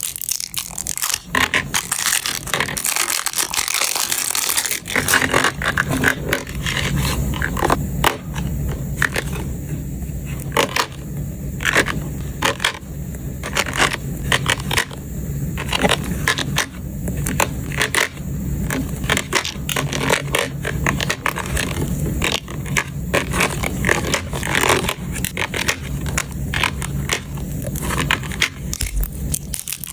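Batteries clinking and rattling against each other and a plastic storage case as they are handled and set in one at a time: many quick, irregular clicks mixed with scraping.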